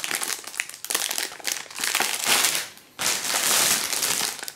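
Clear plastic packaging crinkling and crackling as it is handled, with a short pause about three seconds in.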